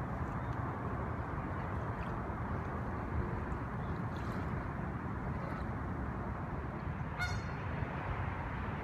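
Steady outdoor background noise, with a single short honk about seven seconds in.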